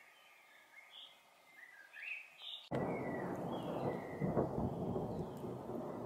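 A common chaffinch gives faint scattered chirps, then a little under halfway through a loud rumble of thunder cuts in suddenly and keeps rolling, drowning out the bird.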